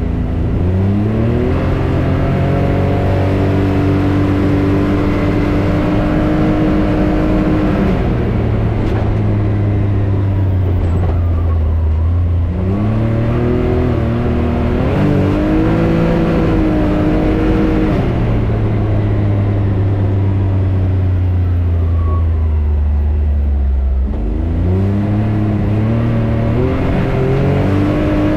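Can-Am Maverick X3 Turbo RR side-by-side driving, its engine climbing in pitch as it accelerates and then holding steady. The engine backs off about a third of the way in and again near the end, and climbs again just after each drop.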